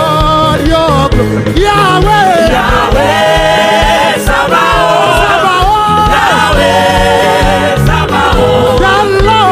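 Gospel choir singing with a live band, the voices sliding through long melodic runs over a steady bass line.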